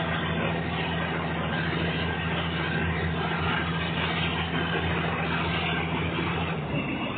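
Diesel passenger train running along the line, heard from inside the carriage: a steady engine drone over the rush and rumble of wheels on rail. Near the end the engine's low hum falls away, leaving the rolling noise.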